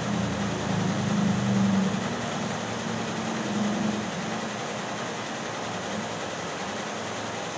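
SWF multi-head embroidery machine running, a steady mechanical whir with a low hum that weakens about halfway through.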